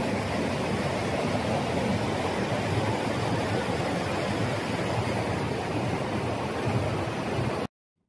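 Mountain stream rushing over rocks and boulders in whitewater rapids, a steady rushing noise that cuts off abruptly near the end.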